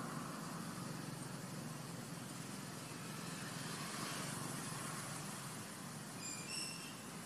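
Steady outdoor background rumble, like distant traffic, with a few short high chirps about six seconds in.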